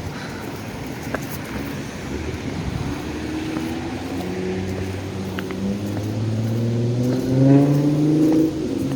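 Road traffic: a car's engine gets louder with its pitch rising as it accelerates past, loudest near the end, over a steady hum of traffic.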